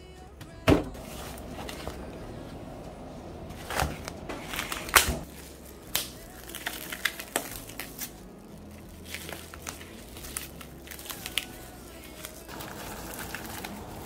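Plastic cling film and a plastic glove crinkling and crackling as the film is handled and peeled off a foam meat tray, in a run of small sharp snaps, over soft background music. A single loud knock comes just under a second in.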